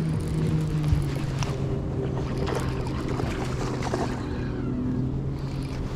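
Steady low hum of a boat motor, with water splashing a few seconds in as a hooked bass thrashes at the surface beside the boat.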